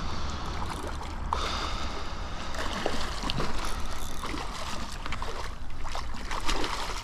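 A small hooked striped bass splashing and thrashing at the water's surface as it is reeled in to the shore, in irregular bursts of splashes over a steady low rumble.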